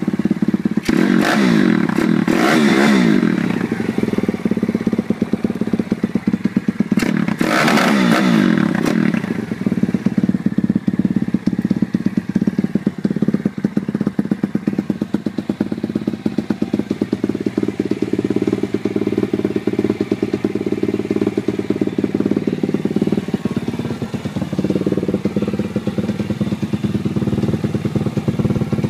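WPB Z140 pit bike's 140 cc single-cylinder four-stroke engine idling, revved hard twice, about a second in and about seven seconds in, each time rising and falling back with a harsh crackling edge as it meets its rev limiter, then running at a steady idle.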